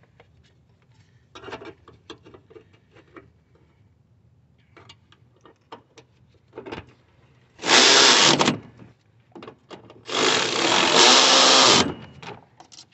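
Cordless electric ratchet running twice, about a second and then about two seconds, driving in the bolts of the power steering reservoir bracket. Before it, light clicks and rattles of the bracket and bolts being fitted by hand.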